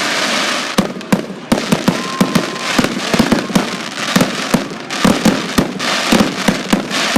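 Fireworks display going off: a dense, near-continuous barrage of sharp bangs and crackling pops.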